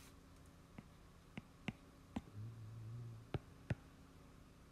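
About six faint, sharp clicks at irregular spacing, with a brief low hum a little past halfway through.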